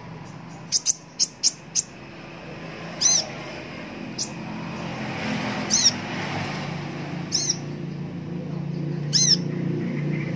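Male Van Hasselt's sunbird (kolibri ninja) giving short, sharp, high chirps: a quick run of five about a second in, then single calls every second or two. A low hum grows louder underneath.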